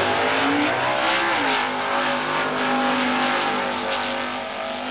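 Super Stock drag racing car engine running hard at full throttle. Its pitch drops once about a second and a half in, then holds steady.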